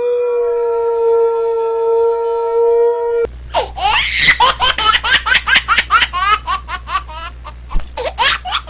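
A long, steady howl-like note for about three seconds. It cuts abruptly into hearty, rapid laughter in quick repeated bursts, which stops suddenly at the end.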